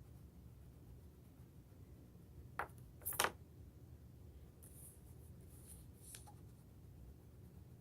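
Crayon colouring on paper in a quiet room: a couple of short scratchy strokes between two and a half and three and a half seconds in, then fainter scratching.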